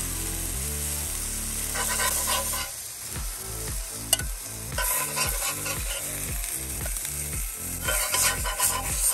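Whole bluegill sizzling in a cast iron skillet, with a metal spatula scraping across the pan a few times as the fish are lifted out. Background music with a steady beat runs underneath.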